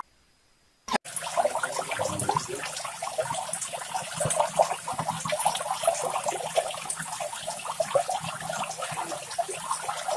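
A large flock of birds calling over one another in a dense, continuous chatter of many short calls, starting abruptly about a second in.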